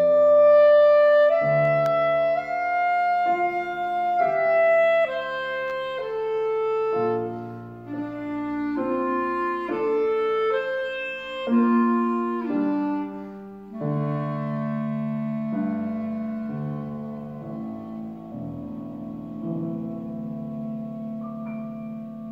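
Clarinet playing a melody of separate notes over piano accompaniment. The loudest passage is in the first few seconds; from about two-thirds of the way through, a low chord is held and slowly fades.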